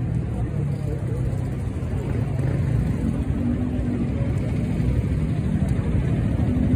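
Steady low engine drone of a motor running, gradually getting louder toward the end.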